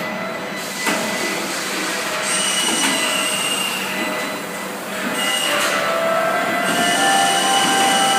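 Robotic spot-welding line machinery running: a steady mechanical din with several high, held whines and a few sharp clicks near the start, getting louder about five seconds in.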